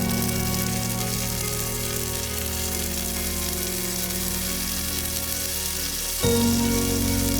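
Background music of sustained chords, changing to a new chord about six seconds in, over a steady sizzling hiss.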